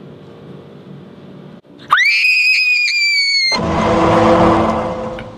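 A person's loud, very high-pitched scream about two seconds in, held for about a second and a half and cut off abruptly. It is followed by a rushing noise that swells and then fades.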